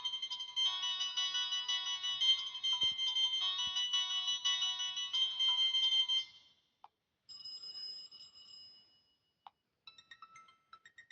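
Prestigio Muze 3231 4G phone ringtones. A busy melody of quick notes with no bass plays and stops about six seconds in. Then a quieter tone starts, made of a few held high notes and short blips.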